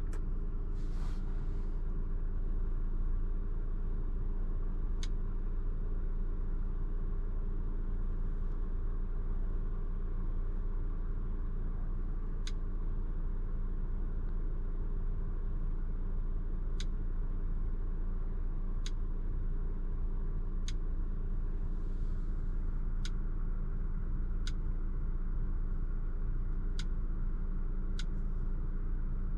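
2021 Audi Q5's 2.0-litre turbocharged four-cylinder idling in park, a steady low hum inside the cabin. Over it come about nine short, sharp clicks, one about five seconds in and then every second or two from just past the middle, as the MMI touchscreen gives haptic click feedback to taps.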